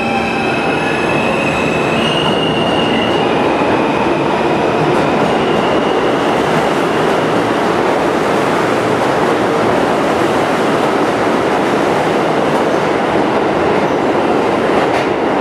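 R160A subway train accelerating out of the station. At first several steady whining tones come from its electric propulsion, one stepping higher about two seconds in. Then a loud, steady noise of wheels on rail as the cars run past.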